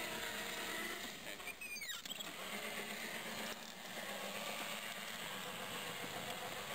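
Electric walk-behind tractor running as its front blade pushes snow: a steady low hum over an even noise, with a brief high gliding squeak about two seconds in.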